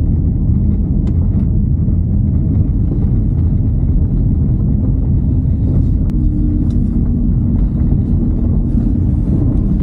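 Car driving on a gravel road, heard from inside the cabin: a steady rumble of tyres on loose gravel with the engine running, and a few sharp ticks along the way. A faint steady hum comes in about halfway through.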